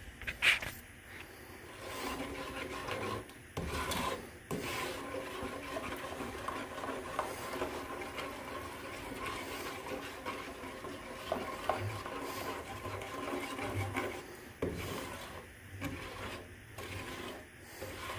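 A spatula scraping and rubbing around the bottom of a saucepan, steadily stirring a thick chocolate, sugar and milk mixture as it heats. There is a sharp knock about half a second in.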